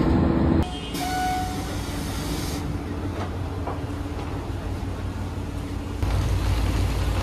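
Local train sounds. First a loud rumble inside the moving carriage, cut off abruptly. Then a brief electronic tone and a quieter steady engine hum while the train stands at the station. About six seconds in, a louder, deeper engine rumble comes in beside the idling red railcar on the platform.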